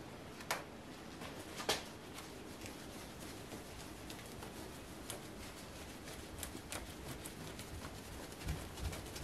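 Cloth rag rubbing over chrome motorcycle fork tubes, with small handling ticks, a sharp click about half a second in and another just under two seconds in, and a few soft low knocks near the end.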